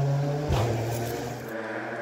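A Ford Fiesta Rally3's turbocharged three-cylinder engine running hard and fading as the car drives away, with one sharp crack about half a second in. After about a second and a half the sound drops to a fainter, distant engine note.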